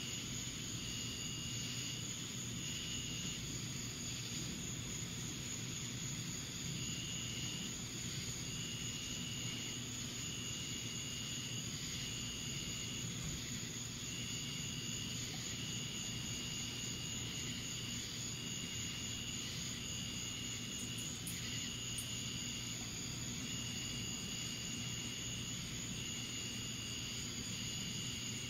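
Night insects calling: a steady train of short high-pitched calls, about one a second, with a pause of a few seconds near the start, over a steady low hum and hiss.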